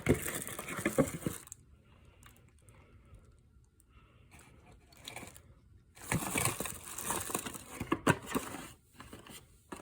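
Rustling and clicking as a boxed tool and its packaging are handled, in two spells: one in the first second and a half, then another from about six to nine seconds in, quieter in between.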